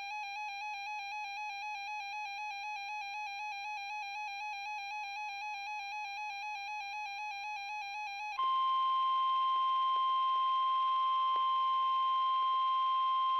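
A weather radio's warbling electronic alert tone. About eight seconds in it gives way to the louder, steady 1050 Hz NOAA Weather Radio warning alarm tone over radio static, which signals that a warning is about to be broadcast.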